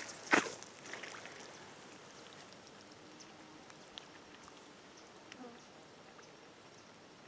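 A short scuffing thump of a footstep on the muddy pond bank close by, then faint rustles and light ticks as the man bends to reach for the trap.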